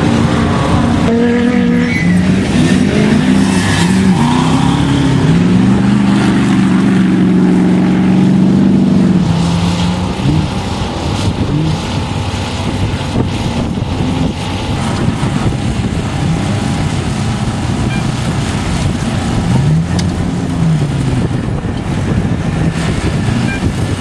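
Off-road race truck's engine running hard and revving up and down, with one long steady climb in pitch that breaks off about nine seconds in, then rougher running with shorter rises and falls.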